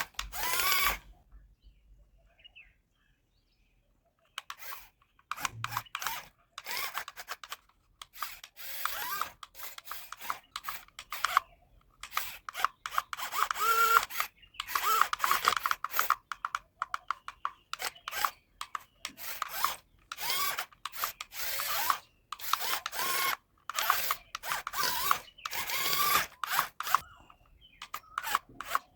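Hand-work scraping and rubbing noises in many short, irregular strokes, beginning a few seconds in after a brief quiet.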